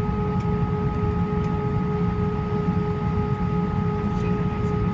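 Airbus A319 jet engines at ground idle, heard inside the passenger cabin: a steady low rumble with a constant, even hum on top.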